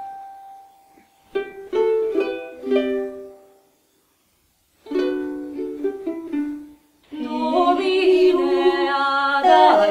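A plucked string instrument playing two short phrases of single notes, each note ringing and fading, with silent gaps between them. About seven seconds in, singing starts on held, slowly moving notes.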